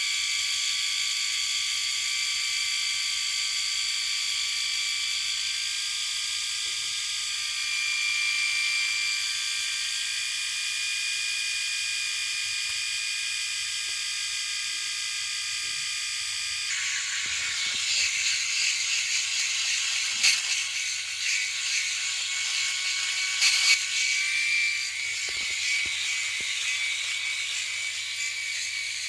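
Electric shaver running with a steady high buzz. About 17 seconds in the buzz turns rougher and scratchier, with a few sharp clicks.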